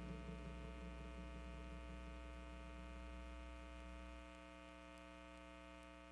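A faint, sustained electronic drone of several held tones over a low hum, fading out. The hum drops away about four seconds in.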